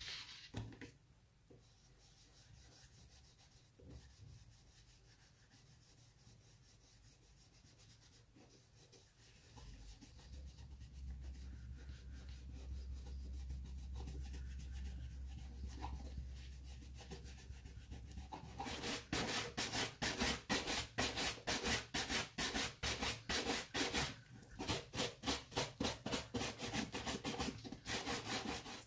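Shoe brush swept quickly back and forth over a leather shoe, rapid even strokes about four a second, starting about two-thirds of the way through with a brief pause near the end: the excess shoe polish is being brushed off. Before that, faint rubbing of polish being worked into the leather by hand.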